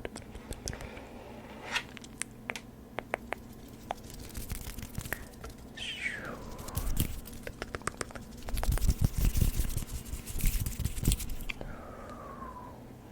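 Close-miked ASMR trigger sounds: scattered crisp clicks, taps and scratching, with a stretch of gusty puffs of air on the microphone about two-thirds through. A couple of short falling squeaks are heard, one about halfway and one near the end.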